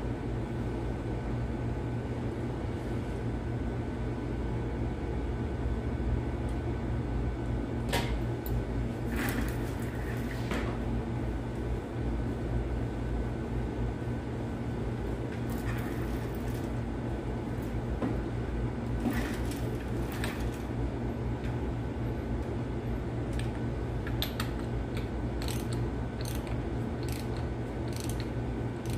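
Steady low background hum, with occasional sharp metal clinks from tools on the Caterpillar 3176 timing gear train. Near the end comes a run of quick sharp clicks as a socket wrench turns the camshaft gear bolt.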